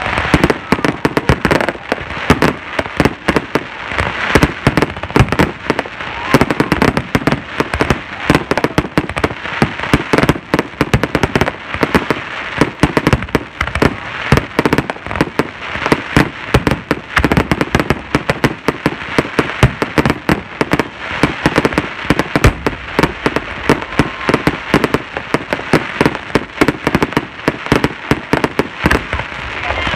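Aerial fireworks going off in a dense, unbroken barrage, with many shell bursts overlapping at several bangs a second.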